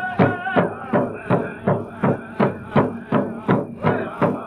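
Powwow drum beaten in a steady even pulse of about three strokes a second, with the singers' voices over it trailing off about half a second in.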